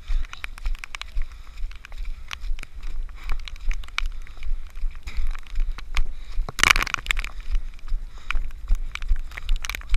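Running footsteps squelching and splashing through deep mud, heard through a body-worn action camera's housing as a steady run of thuds, two to three a second, with clicks and knocks. About two-thirds of the way in there is one louder noisy burst.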